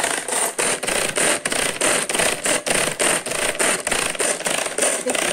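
Hand-pull string food chopper being pulled rapidly, its blades whirring in an even rhythm of about four strokes a second as they whip coffee powder, sugar and hot water into foam.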